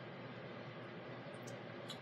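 Quiet room tone: a steady hiss, with two faint, short clicks in the last half-second.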